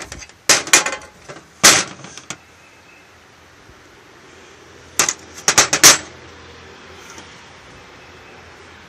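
Chainsaw side cover pieces and metal clamping plates knocking and clattering as they are handled and set down on a workbench. There are a few sharp knocks in the first two seconds, then a quick cluster of clatters about five to six seconds in.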